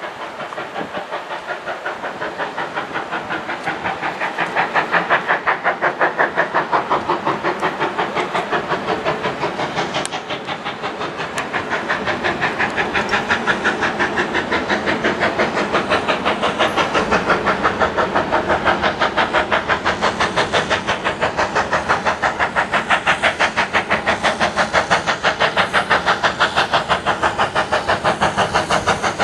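Steam locomotive working hard as it approaches, its exhaust beats coming several times a second in an even, fast rhythm that grows louder over the first few seconds and then holds steady.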